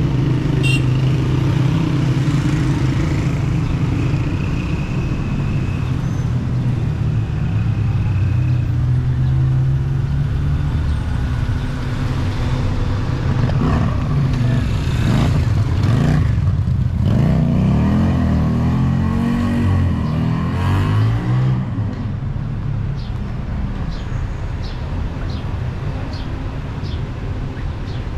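City street traffic: car and motorcycle engines running and passing steadily. About two-thirds of the way through, one engine passes close, its pitch bending up and down as it goes by.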